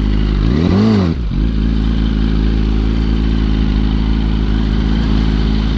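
2005 Yamaha R1's inline-four engine revving briefly about a second in, its pitch rising then falling, then running at a steady pitch.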